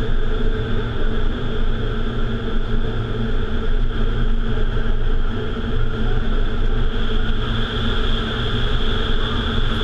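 Vertical wind tunnel running, heard from inside the flight chamber: a loud, steady rush of air from the tunnel's fans with a constant hum in it.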